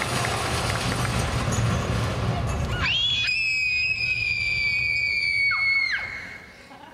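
Applause and crowd noise, then a long, high-pitched scream about three seconds in. The scream sweeps up, holds for about three seconds, and breaks off near the end.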